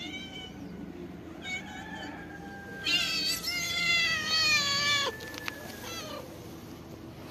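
Calico cat meowing: a few short meows, then one long, loud meow about three seconds in that lasts about two seconds and drops in pitch at its end.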